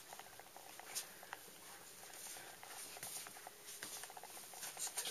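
Faint rustling with scattered soft clicks and light taps, the loudest rustles about a second in and near the end.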